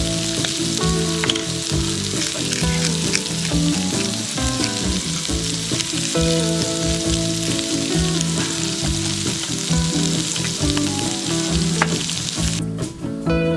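Food frying, a loud steady sizzle that cuts off suddenly about a second before the end, with background acoustic guitar music under it.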